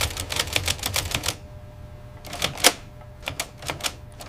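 Manual typewriter keys clacking: a quick run of keystrokes, a short pause about a second and a half in, then a few more separate strikes, one of them louder.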